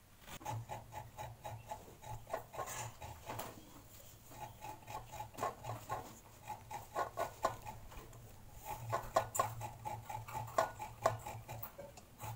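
Halved coconut scraped hard against a metal hand grater over a steel bowl: rapid rhythmic rasping strokes, about four a second, pausing briefly twice.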